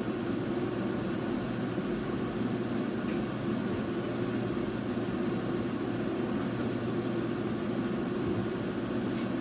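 Steady machine hum, like a running fan, with a faint tick about three seconds in.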